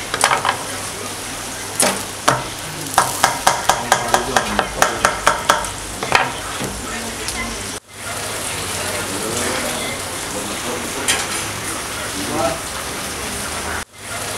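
A large knife chopping through a baked pide onto a plastic cutting board in quick, even strokes, about four a second, in two runs in the first half. After a break about halfway through, a steady sizzling hiss follows.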